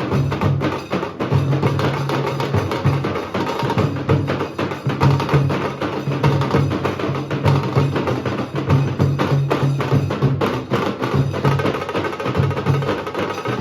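Nasik dhol ensemble drumming: deep dhol beats under a dense run of rapid, sharp stick strokes, continuing without a break.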